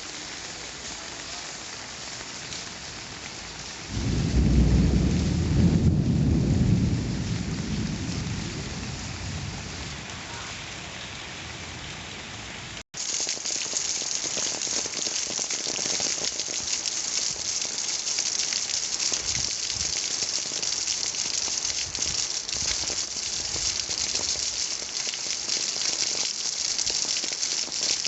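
Steady rain falling. About four seconds in, a roll of thunder rumbles low for several seconds and dies away. After a brief dropout partway through, the rain comes back louder and hissier.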